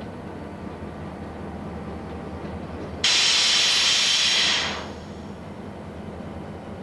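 CP Rail diesel locomotives rumbling as they move past. About three seconds in, a loud hiss of venting air starts suddenly, holds for about a second and a half, then fades away.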